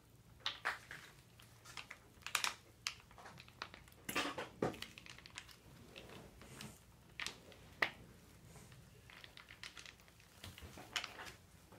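Faint, irregular crinkles and crackles of a plastic mayonnaise pouch being handled and squeezed.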